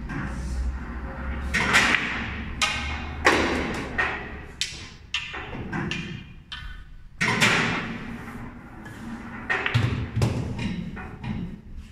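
Pool balls being struck and knocking around a pool table: a string of sharp clacks and knocks, the loudest a little under two seconds in, about three seconds in and about seven seconds in.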